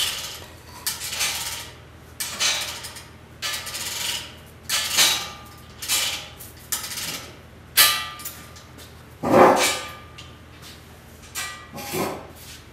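Hand-tool work on a steel truck frame: short scraping strokes repeated about once a second, with a heavier knock about nine seconds in.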